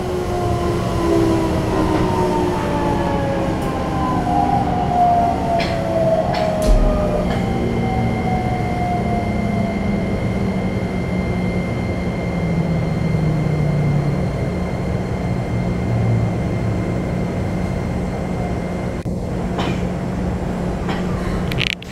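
Keikyu New 1000 series electric train running, heard inside the passenger car: the whine of its Toyo IGBT-VVVF inverter and traction motors over the rumble of wheels on rail. Several whining tones glide steadily downward in pitch through the first half, a steady high tone comes in about a third of the way through, and there is a single low thump about seven seconds in.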